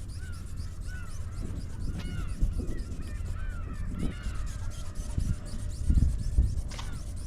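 Strong wind buffeting the microphone in gusts, with a bird calling over and over in short notes that rise and fall in pitch.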